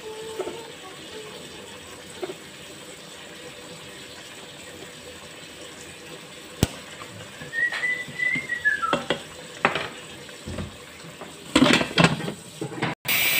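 Quiet kitchen background with a few light clicks and a short whistled tone about halfway through, then a burst of plastic clattering and clicking as an electric pressure cooker's lid is set on and twisted shut.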